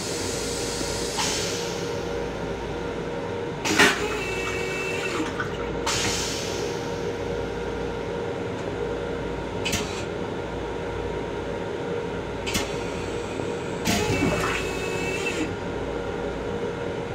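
Long Island Rail Road M7 railcar vacuum toilet flushing: rinse water runs into the stainless-steel bowl, and about four seconds in the vacuum valve opens with a sudden loud suck. Later bursts of rinse water spray into the bowl, over a steady hum.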